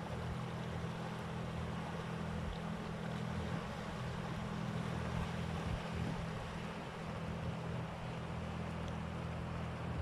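Steady low engine hum under a constant wash of sea water and wind noise, unchanging throughout.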